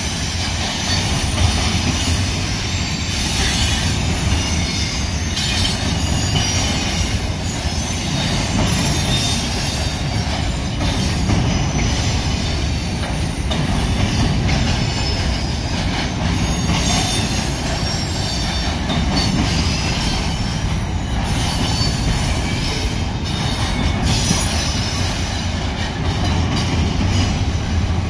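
Union Pacific double-stack intermodal freight train rolling steadily past at close range: a continuous rumble of well-car wheels on the rails, with faint high-pitched wheel squeal and scattered clicks from the rail joints.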